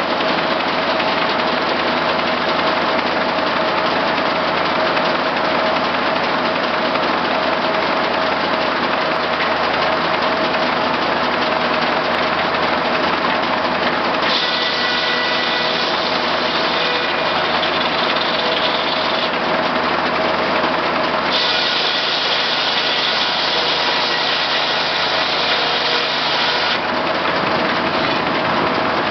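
J. A. Vance circular sawmill running, powered by its Case six-cylinder power unit: a loud, steady engine-and-machinery drone with a constant hum. Partway through, two spells of about five seconds each add a higher-pitched sound over it.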